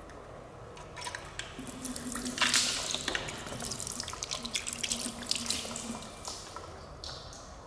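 Water running and splashing with small drip-like clicks, starting about a second in, loudest near two and a half seconds and fading out near the end.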